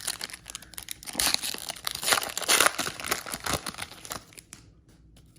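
Baseball card pack wrapper being crinkled and torn open by hand: a dense crackling that is loudest in the middle and fades out about four and a half seconds in.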